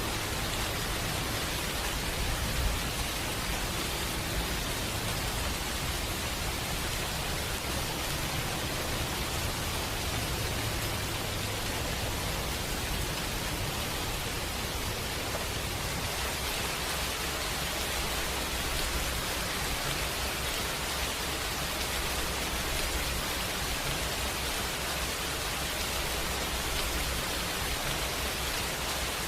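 Steady heavy rain: an even hiss with a low rumble underneath, unchanging throughout.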